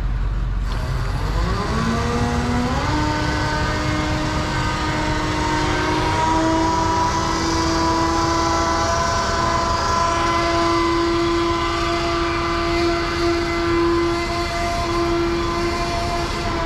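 Crane truck's engine and hydraulics revving up over the first few seconds and held at a steady high whine while the boom lifts the load on the hook, then dropping in pitch near the end.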